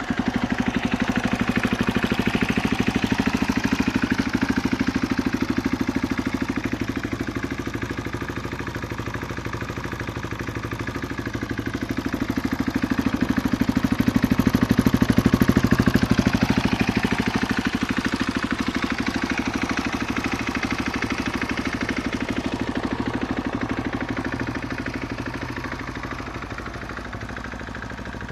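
KTM EXC-F 450 single-cylinder four-stroke engine idling through an FMF 4.1 exhaust. The idle swells a little louder about twelve seconds in, then settles back down.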